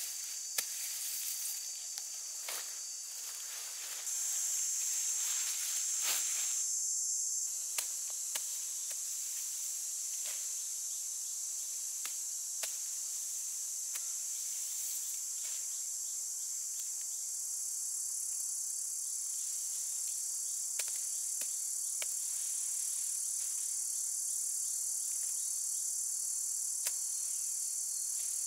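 Steady high-pitched chorus of insects, swelling louder for a few seconds near the start, with scattered short clicks over it.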